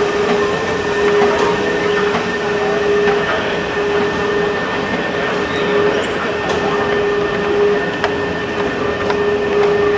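Long metro escalator running: a steady mechanical drone with a constant low hum and a fainter higher whine, and a few light clicks scattered through it.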